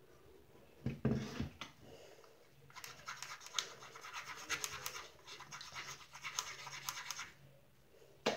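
Homemade slime being worked with fingers in a small plastic lid: a dense, crackly scratching full of tiny clicks for about four seconds, after a brief knock of handling about a second in.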